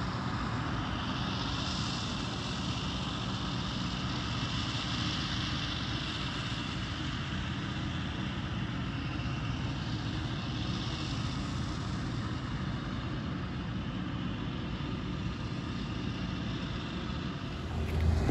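Distant maize-harvesting machinery, a forage harvester and tractors with trailers, running as a steady drone across the field. Near the end a closer tractor engine grows louder.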